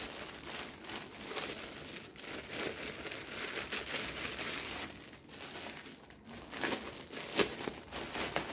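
Clear plastic packaging bag crinkling and rustling as it is handled and folded cloth is slid partly out of it, with a few sharper crackles near the end.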